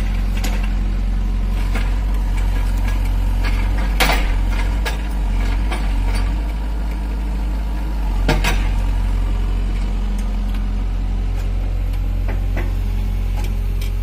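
SANY SY65 excavator's diesel engine running steadily while it works a rotary hydraulic grapple, with several sharp clanks, the loudest about four and eight seconds in.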